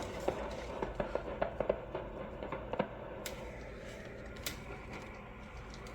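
A quick run of light clicks and ticks over a steady low hum and hiss, then two sharper, single clicks later on.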